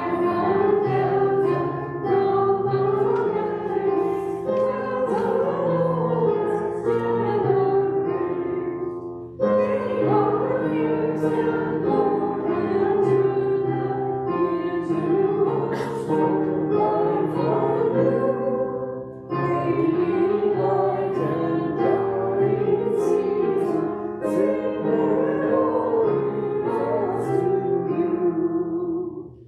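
Hymn sung by a small group of voices with keyboard accompaniment, in three long phrases with short pauses between them.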